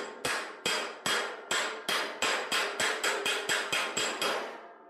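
A flat steel body spoon (slapper) slapping along the welded seam of a thin steel panel over a dolly: a steady run of about three sharp metallic strikes a second, each with a bright ring, dying away near the end. The metallic ring is the sign that the spoon is working against the dolly, stretching the weld out rather than just denting the panel in.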